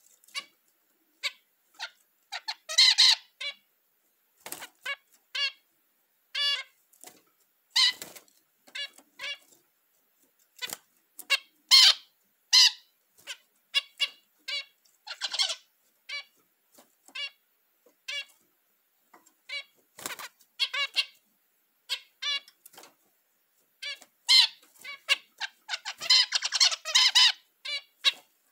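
Zebra finches calling in a cage: many short, sharp calls at irregular intervals, with two longer, denser bursts of song, one about three seconds in and one near the end. These are the breeding birds' mating calls and song.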